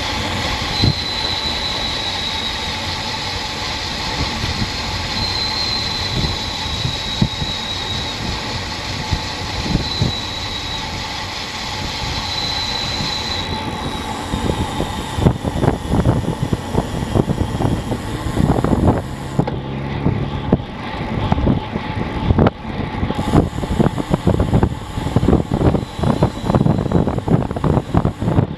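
Wind rushing over a Garmin VIRB action camera's microphone on a bicycle coasting downhill at about 25 mph, mixed with tyre noise on the asphalt. A thin, wavering high whine runs through the first half. From about halfway on, the wind turns gusty and buffets the microphone in uneven surges.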